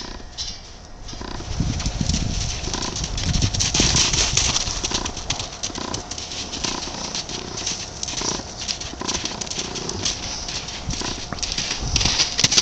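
Young Azteca (Andalusian × Quarter Horse) foal trotting around a sand arena: soft, irregular hoofbeats thudding on the sand.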